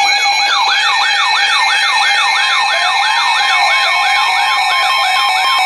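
Weather radio alert alarm going off for an incoming warning: an electronic siren sweeping up and down fast, about four times a second, over steady beeping tones.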